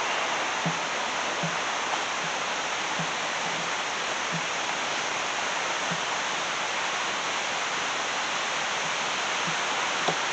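Steady rush of river rapids, with faint footsteps falling at a walking pace.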